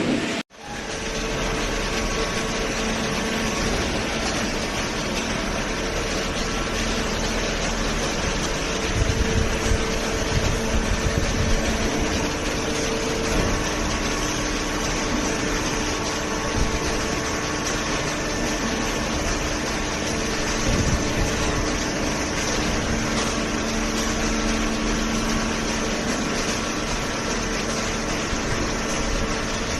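Automatic horizontal hydraulic baler running: a steady machine hum with a faint held tone, and a run of low thumps about nine to twelve seconds in.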